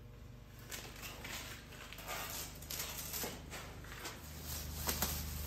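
Paper transfer tape being peeled off a freshly applied vinyl decal, an irregular crackling rustle. About four seconds in, a low steady hum comes in.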